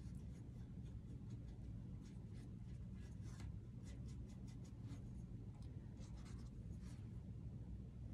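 Faint, scratchy strokes of a small round paintbrush dabbing and swirling acrylic paint on a painted panel, in short irregular touches, over a steady low hum.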